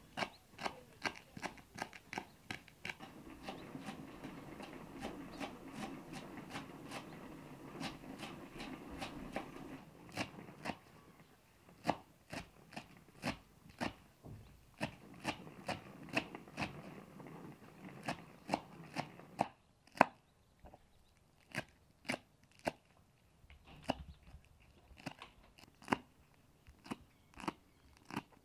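Kitchen knife chopping fresh green herbs on a wooden cutting board: a long run of sharp, repeated strikes, about one to three a second.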